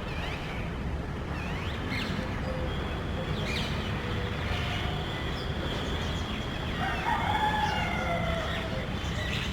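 Parrots calling loudly with harsh, sharp screeches: a few short calls in the first seconds, then a louder, longer run of calls about seven seconds in, over a steady low background rumble.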